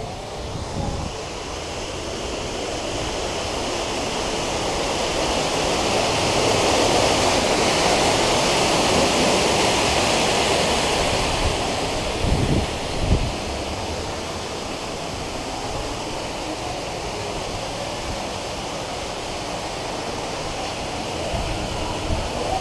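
A steady rushing noise that swells and then eases off, with a few low thumps about twelve seconds in.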